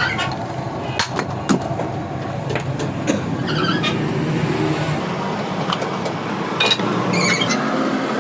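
A car running with a steady low rumble, with a few sharp clicks or knocks at irregular moments.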